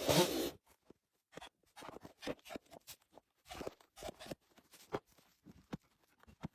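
Chainsaw engine running, then cutting off about half a second in, followed by scattered light knocks and crunches.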